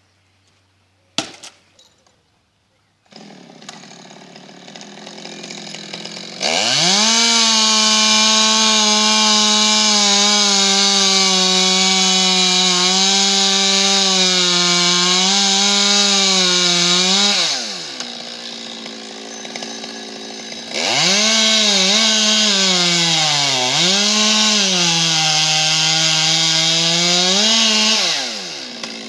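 A two-stroke chainsaw cutting through a tree trunk: after a sharp click about a second in, the saw comes in at idle, then runs at full throttle for about eleven seconds, drops back to idle, and runs flat out again for about seven seconds. Its pitch sags and recovers as the chain bites into the wood, and it falls back to idle near the end.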